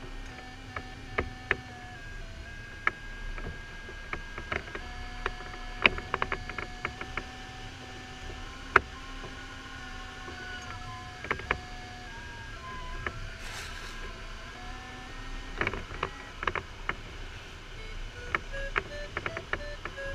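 Inside a glider cockpit: steady rushing airflow with an electronic variometer tone that holds and steps up and down in pitch every few seconds, once gliding upward. Sharp clicks and knocks from the cockpit sound throughout and are the loudest sounds. Near the end the tone turns into short quick beeps, the variometer's signal of lift.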